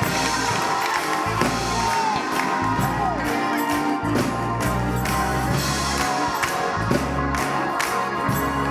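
Live church music with sustained chords, a bass line and a steady beat, with the congregation's voices calling out over it.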